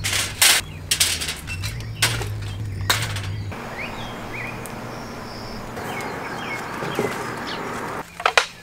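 Sharp knocks and clatter of camping gear being handled over a low hum, then an even outdoor hiss with several short rising bird chirps; a few more sharp knocks near the end.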